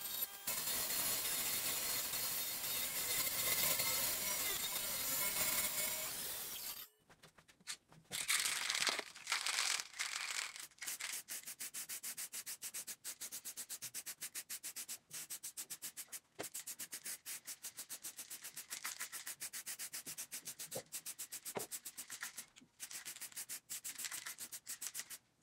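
Wood rubbing and scraping on a table saw's table for about seven seconds. Then an aerosol spray can hissing, first as one longer spray, then in a quick, regular pulsing of short spurts.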